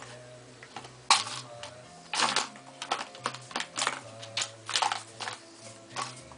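Plastic ball-in-track cat toy being batted by a cat: irregular clattering knocks of the ball and paw against the hollow plastic ring, about a dozen, some in quick runs.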